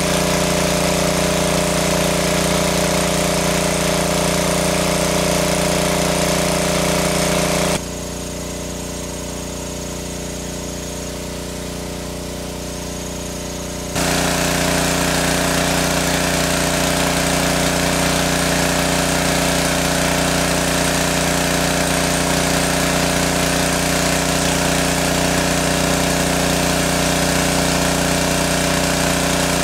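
Engine-driven water pump running steadily at a constant speed with a fast low throb. About eight seconds in the sound abruptly drops quieter and duller for about six seconds, then returns to full level.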